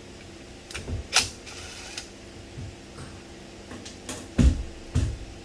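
Clicks and clunks of a metal cover panel being unfastened and taken off for wiring, with two heavier thumps near the end.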